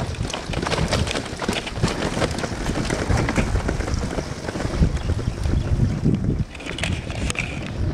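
Wind buffeting the microphone of a moving tandem bicycle, with a low rumble and a run of quick clicks and rattles from the ride. The buffeting eases off about six and a half seconds in.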